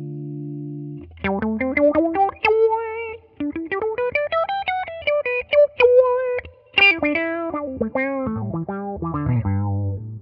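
Les Paul-style electric guitar played through an Analog Man Block Logo envelope filter (auto-wah) set to downsweep. A held chord dies away, then about a second in a quick run of picked single notes begins, climbing and falling in pitch, each note shaped by the filter.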